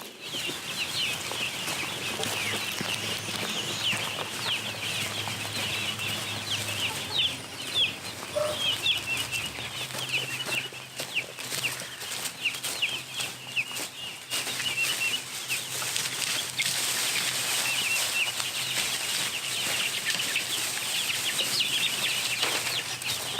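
A flock of eight-week-old chicks peeping steadily in many short high chirps, with wings flapping and rustling now and then.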